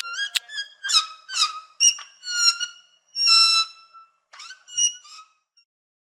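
Sloth giving a run of about ten short, high-pitched, squeaky bleats, one drawn out longer a little past halfway.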